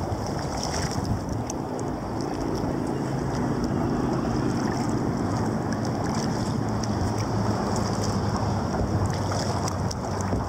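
Steady wash of wind on the microphone and water moving along a sea kayak's hull, with a low hum underneath.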